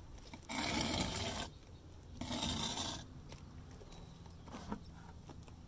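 Two scraping strokes of a metal putty knife through wet stucco patch, each about a second long, followed by a light click.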